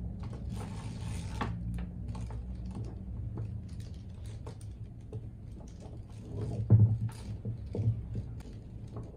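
Plastic beads of beaded handbags clicking and rattling against each other as the bags are picked up and handled on a table, with two duller knocks about two-thirds of the way through. A low steady hum runs underneath.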